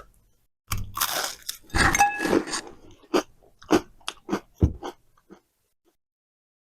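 A person biting into and chewing crunchy food: a loud crunch, then short crunching chews about two a second that fade away.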